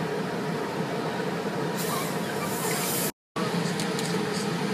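Laundry pressing machinery running with a steady hum and hiss, with a louder hissing release about two seconds in. The sound drops out for a moment just after three seconds.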